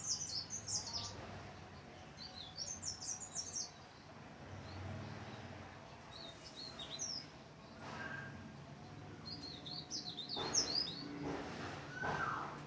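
Cikrak daun, a leaf warbler, singing in short phrases of rapid, jumbled high twittering notes, four or so phrases a few seconds apart. Some lower noises come in near the end.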